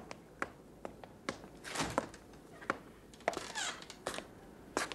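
Scattered footsteps, taps and knocks on a floor, with a door being opened and rustling in between.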